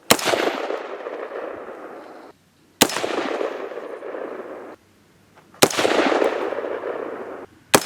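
AR-15 rifle firing four single shots, evenly spaced a little under three seconds apart, each crack followed by a long echo that dies away over about two seconds. The fourth shot comes right at the end.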